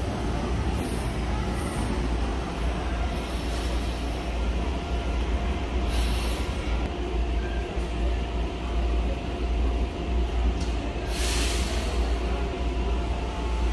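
Electric metro train pulling into a station platform and slowing to a stop. It makes a continuous low rumble with a faint steady whine, broken by several short hisses, the loudest about eleven seconds in.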